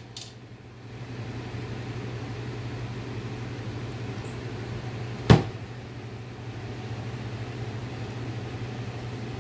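A single sharp knock about five seconds in as an aluminum soft-plastic bait injection mold is handled, over a steady low hum.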